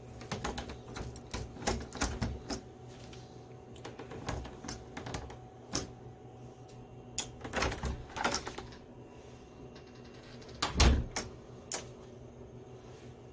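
Irregular clicks and clacks of small hard parts and tools being handled while a door lock is fitted, with a heavier knock about eleven seconds in.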